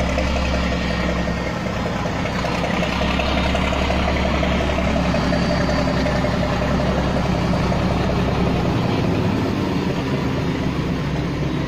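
Drewry diesel locomotive Pilton's engine running as the loco moves slowly up and past, a steady low drone that drops away about nine seconds in.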